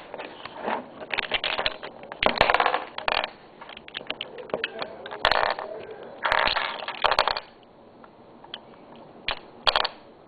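Plastic Rubik's Cube pieces clicking and clattering as the cube is pulled apart by hand, piece by piece. There are sharp clicks and short rattles, a quieter spell about three-quarters of the way through, then one more click.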